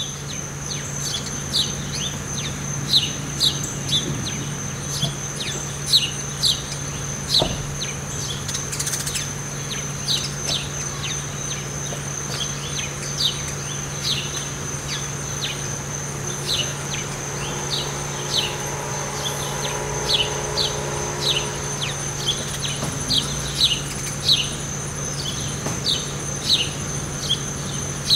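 Many short, sharp bird chirps, each sweeping downward in pitch, at about one to two a second, over a steady high insect drone. A low steady hum runs underneath.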